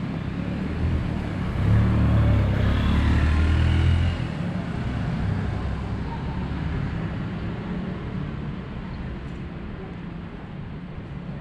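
Road traffic: a vehicle passes, loudest about two to four seconds in, over a steady traffic hum.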